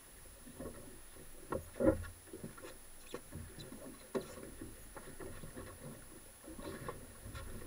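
Irregular knocks and taps on a small fibreglass boat, with small waves lapping at the hull. There is a louder thump about two seconds in.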